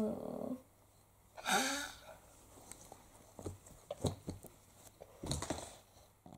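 Quiet rustling and light taps of plush toys being handled and moved on carpet. A short voice sound comes about one and a half seconds in.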